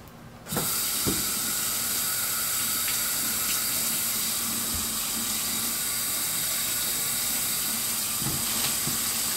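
Kitchen faucet running steadily into a stainless steel sink, starting abruptly about half a second in, with water splashing over cucumbers being rinsed under it.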